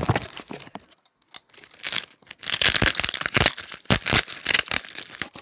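A cardboard shipping box being cut and torn open by hand: packing tape and cardboard tearing and crinkling in bursts, with a short lull about a second in before a longer run of tearing and rustling.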